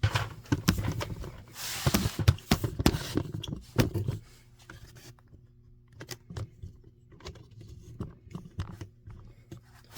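Handling noises from hands-on wiring work at an alarm panel: a busy run of clicks, scrapes and rustling in the first four seconds, then scattered light clicks. A faint steady hum runs underneath.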